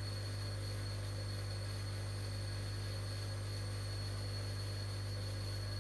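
Steady low electrical hum with a thin high whine over a light hiss, unchanging throughout.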